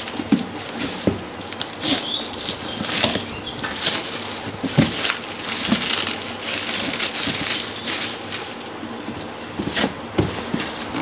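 Clear plastic bag crinkling and rustling as a cardboard box is pulled out of it and turned over, with irregular crackles and a few dull bumps of the box.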